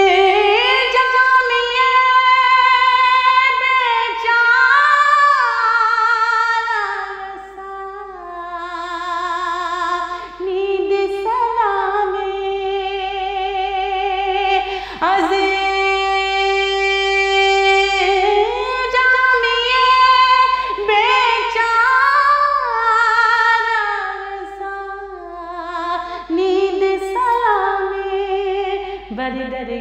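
A woman singing a naat solo, in long drawn-out notes with vibrato and sliding ornamented runs. The level eases off briefly twice, about a quarter of the way in and again near the end.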